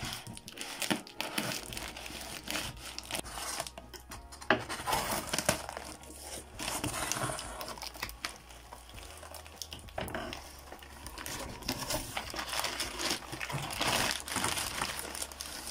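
Crinkling and rustling of packing tape, plastic and paper wrapping as a cardboard parcel is opened by hand, with scattered small tearing and crackling noises.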